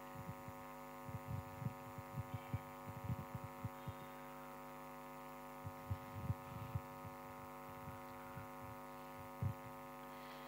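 Faint steady electrical hum in the church sound system, a drone made of many evenly spaced tones. Scattered soft, low thumps come in irregular clusters.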